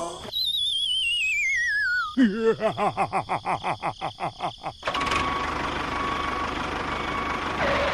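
Cartoon-style sound effects: a warbling whistle slides down in pitch, then a quick run of pulses at about five a second fades away, then a steady noisy rumble takes over about five seconds in.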